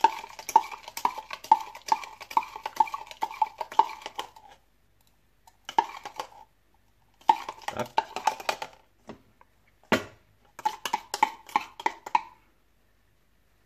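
Metal spoon stirring a sugar-and-rice-vinegar dressing in a plastic measuring cup, clinking against the sides about four times a second to dissolve the sugar, then stopping and starting in short clattering spells.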